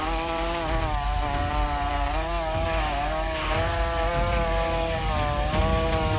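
Chainsaw running at high revs while cutting. Its pitch sags and recovers several times as the chain loads up in the wood.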